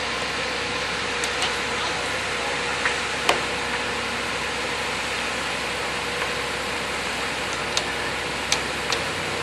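Concrete mixer truck running steadily with its drum turning, a constant steady tone over an even noise, with scattered sharp clicks and knocks, the loudest about three seconds in.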